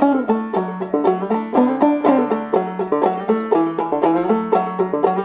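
Banjo played clawhammer style: a steady, even rhythm of plucked and brushed notes in an old-time tune.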